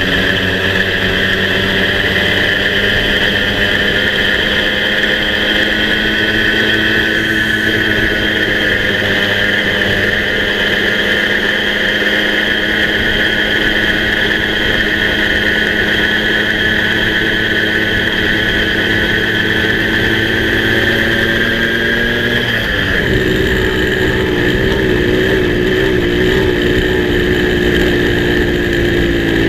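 Moped's small two-stroke engine running steadily under way, with wind and road noise. About 22 seconds in, the engine note dips and then carries on at a different pitch.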